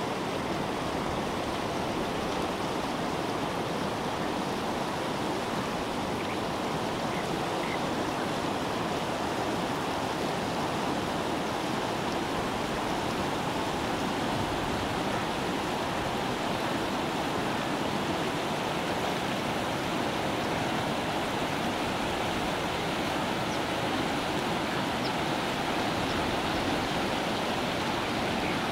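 Shallow mountain stream rushing over rocks, a steady, even rush of water with no breaks.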